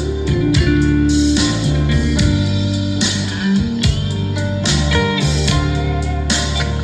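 Instrumental backing music: a lead guitar line over sustained bass notes and a steady drum beat.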